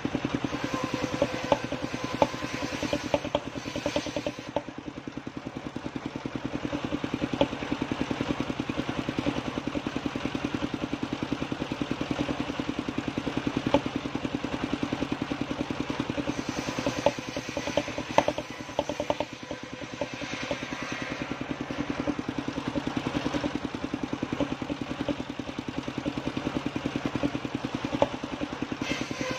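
Engine driving a circular-saw bench running steadily with a fast, even chug, while wooden slabs and a log knock and clatter against the saw table now and then.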